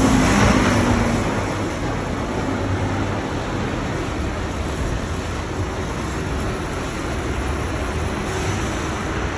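City buses and traffic passing close by: a double-decker bus pulls away with its engine running, and the steady rumble of traffic and tyres follows.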